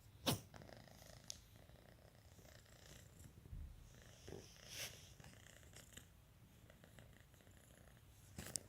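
Domestic cat purring faintly, a low steady purr. There is a single sharp click shortly after the start.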